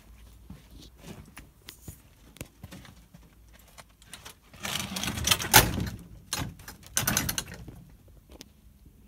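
Footsteps and small clicks of a person moving close to the microphone. Then two louder bursts of rustling and scraping, the first about halfway through and the second shortly after, as they brush along a wooden fence overgrown with ivy.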